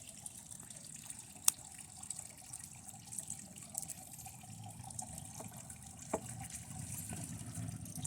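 Circuit board burning under high current from a lead-acid battery: a faint steady hiss and fizz with scattered small crackles, and one sharp pop about a second and a half in.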